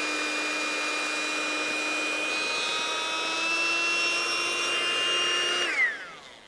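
Exped Widget battery-powered pump inflating a sleeping pad, its small fan motor running with a steady whine. The pitch rises a little partway through, then the motor spins down and stops near the end as the pad is full.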